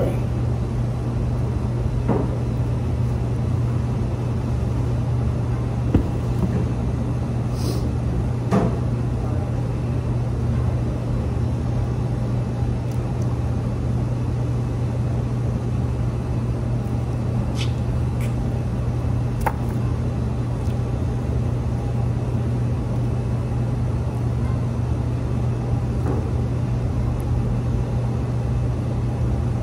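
A steady low mechanical hum, with a few faint clicks and smacks from eating rice and meat by hand.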